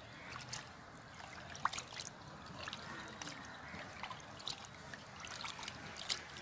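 Hands stirring and rubbing small needle fish in water in a clay bowl to wash them: water sloshing and trickling, with many small, quick splashes.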